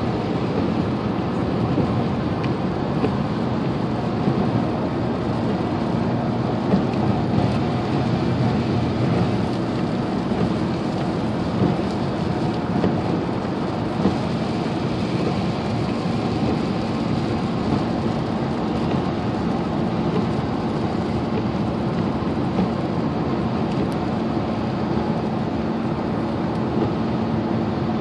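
Steady cabin noise of a truck driving on a rain-soaked highway: tyres hissing on the wet road over a low engine and road drone. The hum shifts to a slightly higher pitch about ten seconds in.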